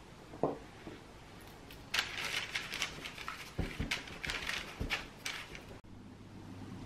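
Baking paper on a metal baking tray crinkling and rustling under hands setting down and pressing coconut-coated chocolate cookie-dough balls, with a few soft knocks on the tray.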